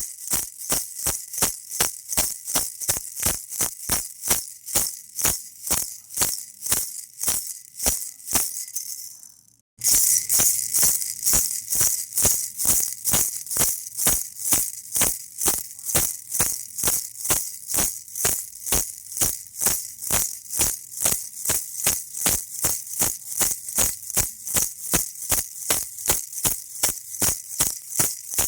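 Baby rattle shaken in a steady rhythm, about three bright, high rattling shakes a second. About nine seconds in it fades out, falls silent for a moment, then starts again abruptly.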